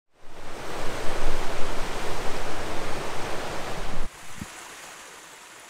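Steady rushing roar of a waterfall, loud and even with a deep rumble underneath; it cuts off abruptly about four seconds in, leaving a much quieter hiss.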